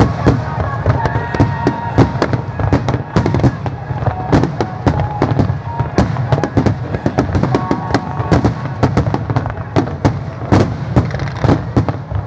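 Fireworks display: a dense barrage of aerial shells and low fan-shaped volleys bursting, several bangs a second over a steady low rumble of echoing reports.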